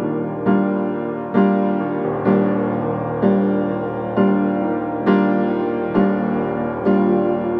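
Background piano music, a new chord struck about once a second.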